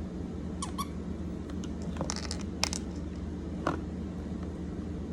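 A few short, faint clicks and taps of small fidget toys being handled, over a steady low hum.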